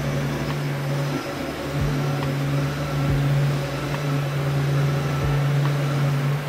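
Omni PLite CNC router running its homing cycle: a steady machine hum with a few soft low knocks.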